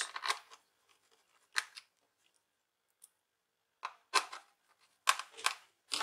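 Small screws being driven into a laptop's plastic bottom cover with a small screwdriver: short scratchy clicks and scrapes, spaced a second or more apart at first and closer together near the end.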